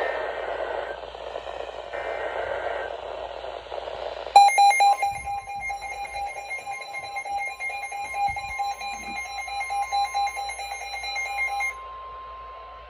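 Radio hiss, then about four seconds in, an Emergency Alert System activation: a brief rasp of data bursts followed by a loud, pulsing two-tone alert signal. The pulsing stops near the end, leaving one steady tone.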